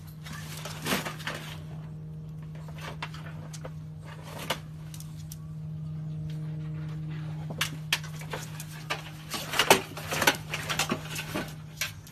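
Bulldog rooting headfirst in a galvanized metal tub of dog coats: irregular knocks and clanks of the tub and rustling fabric, coming thick and loudest in the last few seconds, over a steady low hum.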